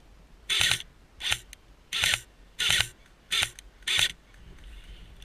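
Airsoft rifle firing six short bursts, with the mechanical clatter of its mechanism, a little more than one a second.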